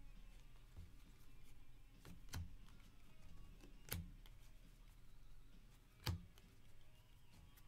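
Faint taps and clicks of baseball cards being flipped through by hand and dropped onto piles on a table, with three sharper snaps spaced about two seconds apart.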